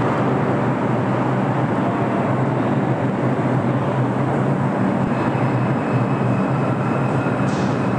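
Steady, loud rumble and hum of a New York subway station with trains running, with a faint high whine creeping in about halfway through.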